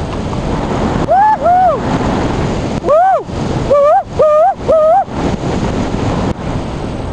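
Airflow of a hang glider in flight rushing steadily over the microphone. Between about one and five seconds in comes a run of about seven short, high-pitched tones, each rising and then falling in pitch.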